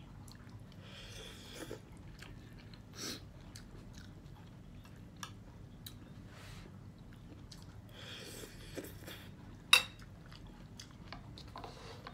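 Close-up eating sounds: chewing a mouthful of misua noodle and vegetable soup with rice, a few short hissing intakes, and light clicks of a fork and spoon on a plate. A sharp clink of a utensil on the plate a little before ten seconds in is the loudest sound.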